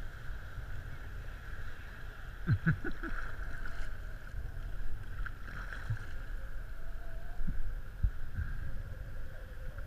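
Sea kayak paddle strokes splashing in choppy salt water, over a steady low rumble of wind and water on the microphone.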